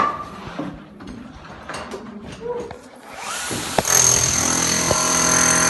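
Jobsite knocks and clatter, then about three seconds in an electric power tool starts and runs steadily with a high whine, the loudest sound here.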